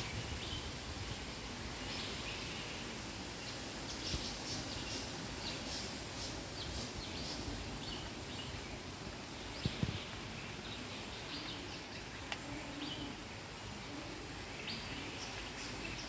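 Steady outdoor background hiss with birds chirping here and there, and two brief low thumps just before ten seconds in.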